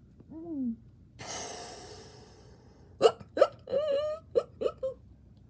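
A boy imitating hiccups aloud. There is a long puff of breath let out about a second in, then from about three seconds in a quick string of about six short voiced 'hic' sounds.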